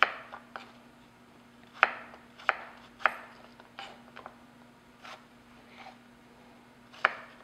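Knife chopping peeled apples into chunks on a wooden cutting board: the blade knocks sharply on the board about seven times at uneven intervals.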